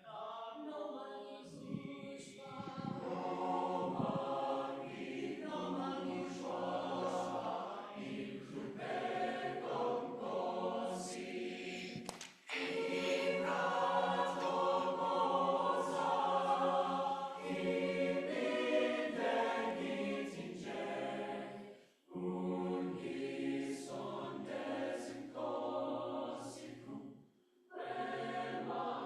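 Choir singing a South African choral song; its words include click consonants. The singing breaks off briefly three times, about twelve, twenty-two and twenty-seven seconds in.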